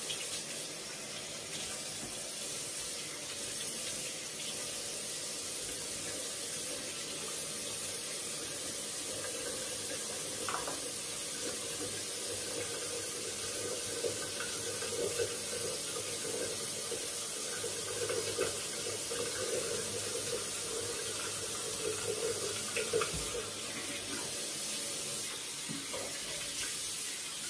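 Bathroom faucet running steadily into a sink while hands and face are washed under it, with water splashing off the hands and face.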